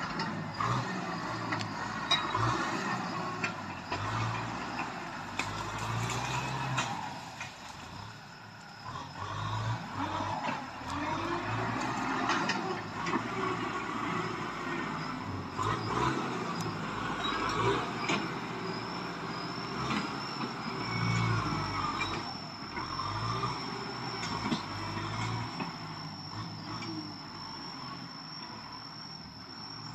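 Farm tractor engine running under load as it pulls a disc harrow, its pitch and loudness rising and falling every few seconds.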